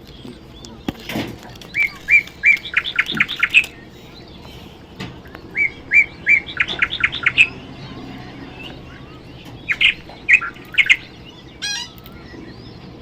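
Parrot chirping in three bouts of short, high, rapidly repeated calls, each bout speeding up as it goes, a few seconds apart.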